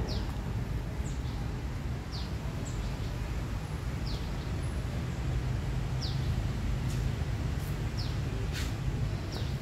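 A small bird chirping: short, high, falling chirps every second or two, over a steady low rumble.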